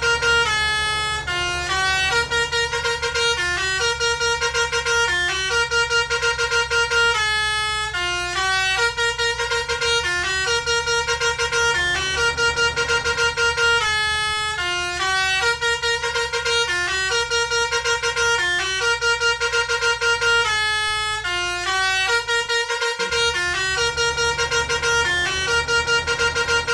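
Bus basuri horn, a multi-tone electric telolet horn, playing a tune of quick stepped notes over and over, with a steady low rumble underneath.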